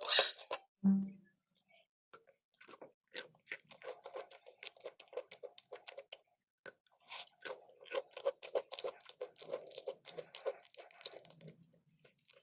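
Close-miked chewing of crunchy chalk and clay: a dense run of irregular crisp crunches and mouth clicks, with a short low hum about a second in.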